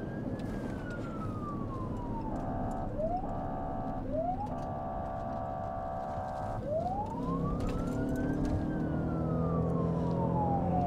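Police car siren heard from inside the patrol car during an emergency response, sounding a slow wail that rises and falls. About two seconds in, the wail is broken by three steady horn blasts, the longest about two seconds, with short rising chirps between them.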